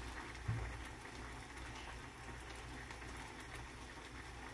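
Faint steady bubbling hiss of a pot simmering on the stove, with a soft low thump about half a second in.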